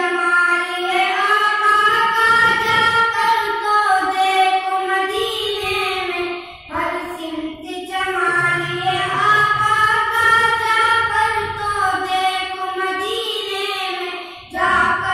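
A boy's voice singing a naat, an Islamic devotional poem, unaccompanied, in long drawn-out wavering lines, with a short break for breath about six and a half seconds in and again near the end.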